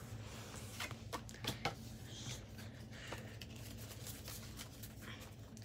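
Faint, scattered clicks and rustles of hands handling trading cards and their plastic and foil packaging, over a low steady electrical hum.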